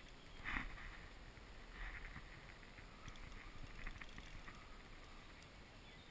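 Faint handling noise from a fishing rod and spinning reel: soft scuffs about half a second in and near two seconds, with scattered small clicks.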